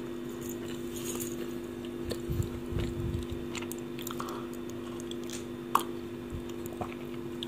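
A person chewing mochi close to the microphone: soft, sticky mouth sounds with small clicks, over a steady electrical hum. There is one sharper click about six seconds in.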